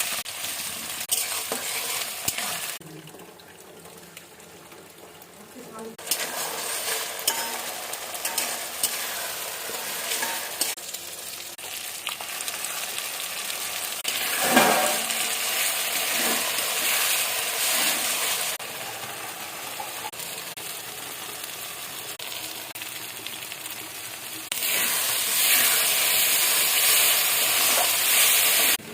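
Chicken kosa frying in oil in a pan, sizzling while it is stirred, with occasional knocks of the spoon on the pan. The sizzle drops and rises in loudness abruptly a few times.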